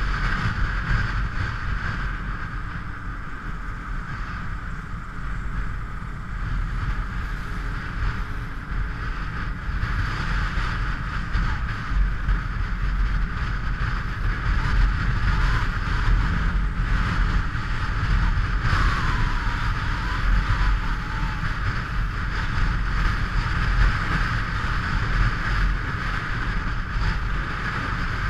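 Motorcycle riding along at speed: a steady engine drone under constant wind rush on the camera microphone.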